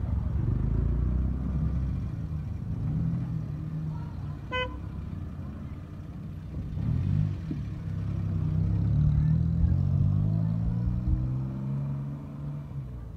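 Motor vehicle engine running, its pitch rising and falling, with one short horn toot about four and a half seconds in.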